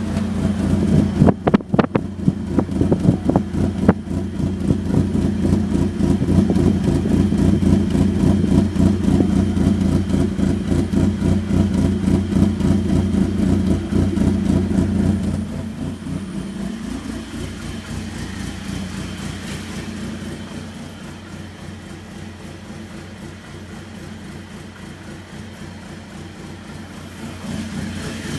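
Mitsubishi Mirage Cyborg RS's MIVEC four-cylinder engine idling rough and uneven, with a few sharp clicks in the first few seconds. It runs louder for the first half, drops off about halfway through and picks up again near the end.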